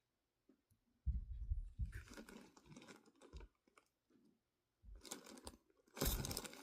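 Packaging being handled: intermittent rustling and crinkling with a few dull bumps, as the bag gloves are taken out of their wrapping. It starts about a second in, pauses, and picks up again near the end.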